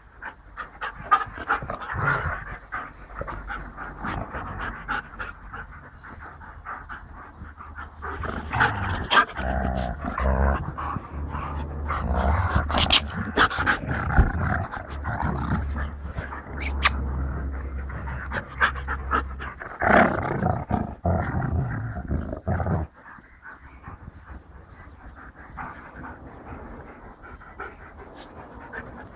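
A German shepherd and a white shepherd dog panting and growling at play, close up. A low rumble runs under them from about eight seconds in until about twenty-three seconds in.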